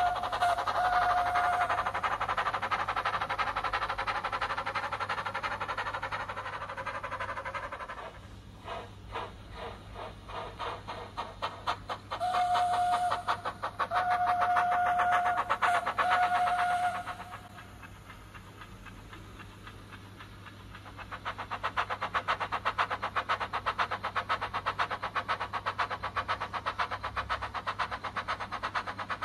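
DCC sound decoder in a Bachmann Baldwin narrow-gauge model locomotive playing steam sounds recorded from the Ffestiniog Railway's locomotive Prince. A whistle blows briefly at the start over steam and chuffing. A few seconds of separate, spaced exhaust chuffs follow, then the whistle sounds three times, and after a quieter lull a quick, steady beat of chuffs runs through the last eight seconds or so.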